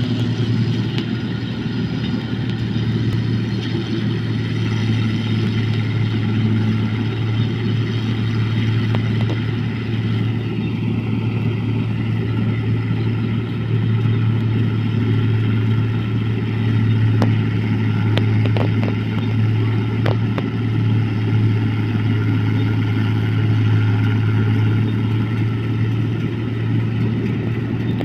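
Engine of a paddy-field machine running steadily at a constant speed, a continuous low drone, with a few faint clicks about two-thirds of the way through.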